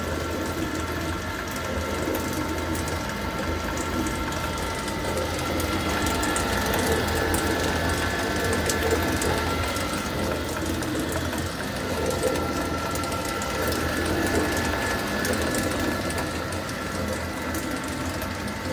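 Electric gearmotor on a Spomasz meat mixer running steadily and driving a roller chain over large sprockets. It gives a low hum and a steady whine, with the chain clicking over the sprocket teeth.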